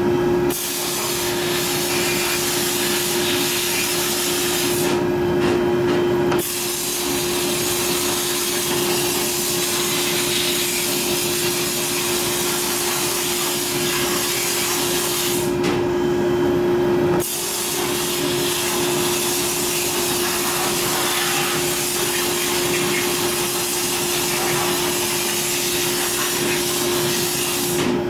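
Blast-cabinet gun blasting glass beads onto aluminium engine parts: a steady rushing hiss of air and media over a steady hum. The blast cuts off twice, about five seconds in and again around fifteen seconds, each time for about a second and a half.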